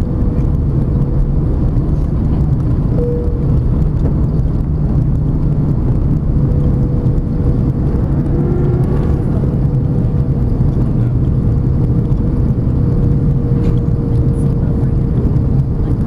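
Cabin noise inside an Airbus A330 airliner on approach to land: a loud, steady low rumble of engines and airflow, with a thin steady whine held throughout.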